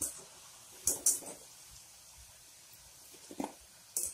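Cornflour-coated potato pieces deep frying in oil in an aluminium kadai with a faint, steady sizzle, broken by a few short, sharp clinks of the wire spider strainer against the pan: one at the start, a pair about a second in, and more near the end.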